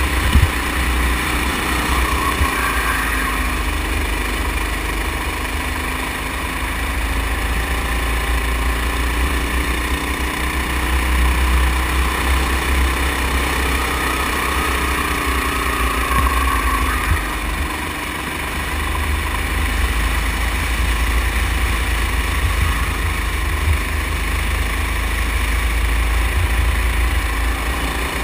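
Go-kart's small engine running under throttle round the track, its pitch rising and falling through the corners, with heavy low wind rumble on the microphone.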